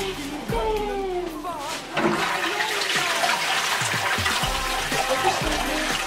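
Toilet flushing: a sudden rush of water starts about two seconds in and carries a wad of about 50 sheets of toilet paper down without clogging. Background music plays throughout.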